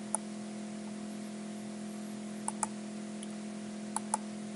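Computer mouse buttons clicking: one click just after the start, then two quick pairs of clicks about two and a half and four seconds in, over a steady electrical hum.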